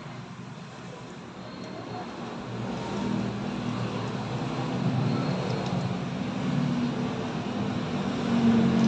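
A motor running with a low hum that grows steadily louder.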